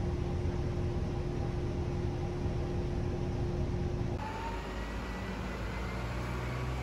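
Bus engine and cabin noise heard from a passenger seat: a steady low rumble with a constant hum. About four seconds in it switches abruptly to outdoor street ambience with traffic rumble.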